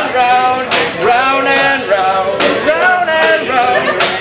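A man singing a tune over a steady beat of sharp hits, a little under one a second.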